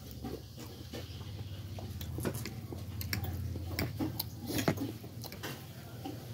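Eating sounds of stir-fried noodles being slurped and chewed: scattered short clicks and smacks from the mouth and a fork against the plate, the loudest a little before five seconds in, over a low steady hum.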